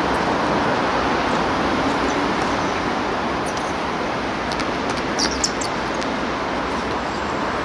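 Steady rushing outdoor background noise, with a few short sharp clicks about five seconds in.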